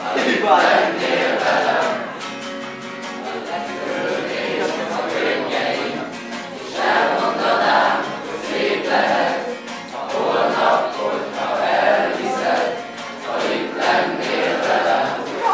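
A group of young people singing a song together, many voices in unison that swell and fade phrase by phrase.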